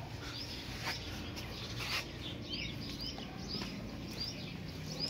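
Small birds chirping: many short, high chirps over a faint outdoor background.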